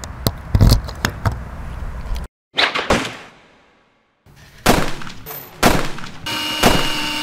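Scattered sharp clicks and knocks, then a single loud hit with a fading tail about two and a half seconds in: the sound effect of a channel logo intro. More knocks and clatter from hand work on a sink faucet follow.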